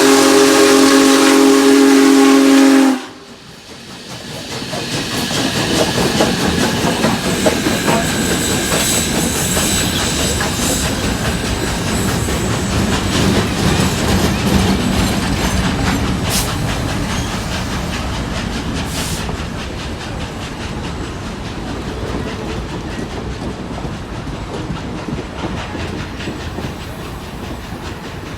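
Union Pacific Big Boy steam locomotive's chime whistle blowing, cutting off sharply about three seconds in. Then the train rolls past: a steady rumble with clickety-clack from the wheels on the rails, slowly fading near the end.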